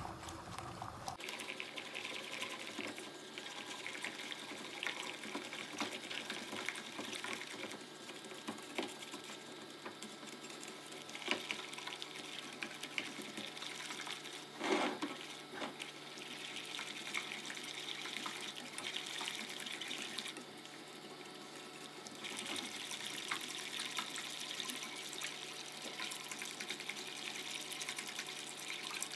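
A balloon whisk stirring a thin chocolate pudding mixture of milk, flour, sugar and cocoa in a pot on the heat: a steady wet swishing with small clicks of the wires against the pot, kept up until the mixture boils. There is one louder knock about halfway through, and the swishing eases briefly about twenty seconds in.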